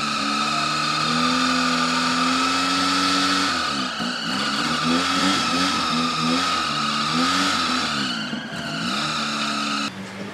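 Small Suzuki 4x4's engine held at high revs, then revved up and down over and over as the bogged vehicle tries to drive out of deep mud, with a steady high whine running under it. The engine sound cuts off sharply near the end.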